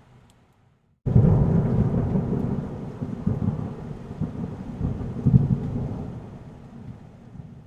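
Thunder sound effect: a rumble starts suddenly about a second in, rolls with several swells and slowly dies away over about six seconds, with a rain hiss underneath.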